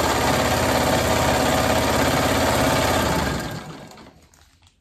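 Vintage black sewing machine running fast and steady while stitching fabric strips, then slowing and stopping about three and a half seconds in.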